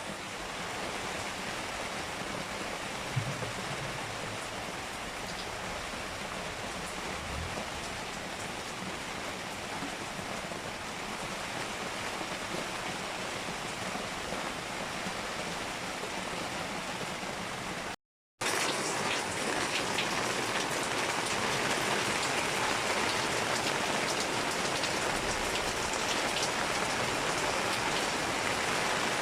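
Steady rain falling, an even hiss of drops with no break in it. After a short cut about two-thirds of the way in, the rain is somewhat louder.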